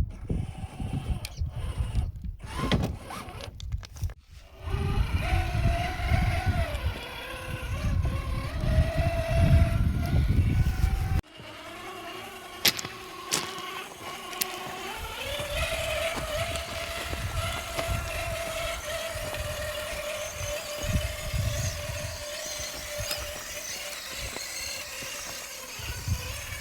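Electric drive of a 1/7-scale RC trail truck whining as it runs, the pitch rising and falling with the throttle at first, then holding steady for the last ten seconds or so. Heavy low rumble lies under the first half and cuts off abruptly about eleven seconds in.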